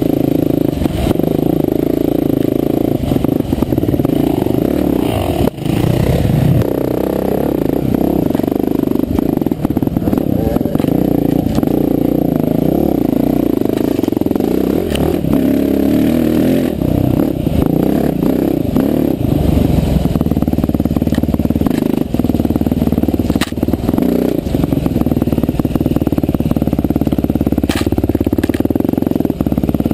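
Off-road motorcycle engine running on a trail ride, its pitch rising and falling with the throttle, with frequent short knocks and rattles from the bike over the bumps.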